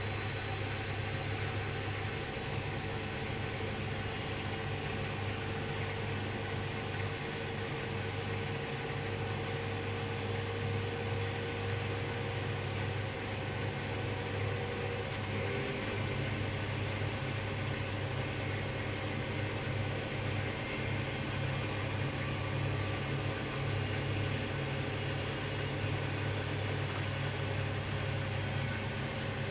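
Hoover washing machine's motor and drum during a calm intermediate spin: a steady hum with a thin high whine, stepping up slightly in pitch about halfway through as the spin speed rises.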